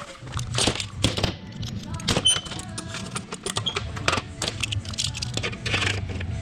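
Metal tools and parts clinking, rattling and knocking as they are handled, over a steady low hum.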